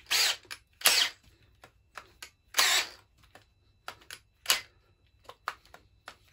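The jammed keyless chuck of a DeWalt 18 V cordless drill driver being worked to release its bit: three short, harsh bursts in the first three seconds, then a few sharp clicks. The chuck is stuck fast and will not open.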